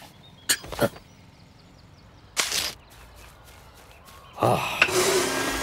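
Cartoon sound effects: a short falling-pitch sound about half a second in and a brief rush around two and a half seconds. Near the end a cylinder vacuum cleaner switches on and runs with a loud steady rush and a thin whine.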